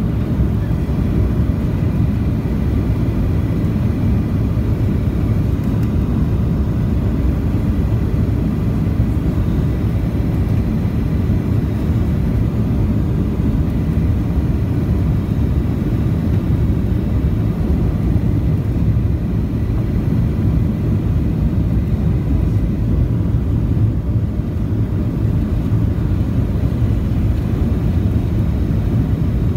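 Boeing 737 cabin noise at a window seat on final approach with the flaps extended: a steady low rumble of the engines and rushing air.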